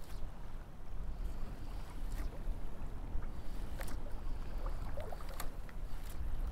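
Wind rumbling steadily on the microphone over open shallow water, with a few faint clicks scattered through.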